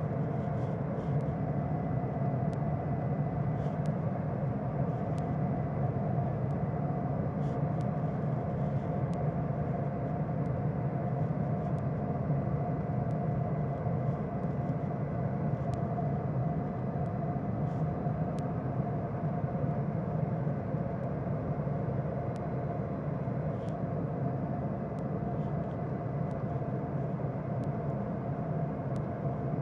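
Diesel locomotive engine running steadily, with an even drone and a thin steady whine above it.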